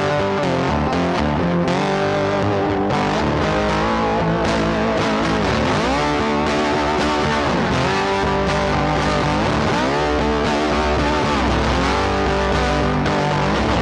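Background music led by electric guitar, with notes bending up and down in pitch.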